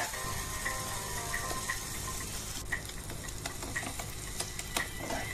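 Spatula stirring a sizzling onion-tomato masala in a pan, with a steady frying hiss and irregular clicks and scrapes of the spatula against the pan.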